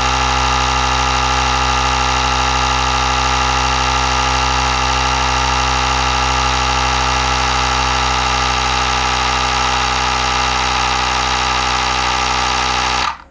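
Battery-powered VARO tyre inflator's small compressor running steadily as it pumps up a bicycle tyre, then cutting off abruptly near the end as it reaches the preset pressure and switches itself off.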